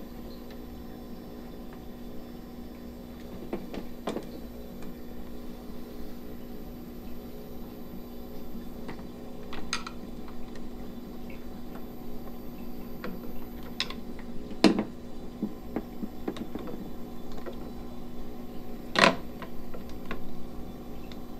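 Aquarium pumps running with a steady hum, while equipment is handled with scattered clicks and knocks; two louder knocks come about 15 and 19 seconds in.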